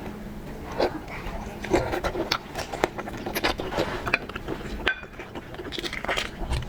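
Close-miked eating sounds of shrimp being chewed: a string of irregular wet clicks, smacks and mouth noises.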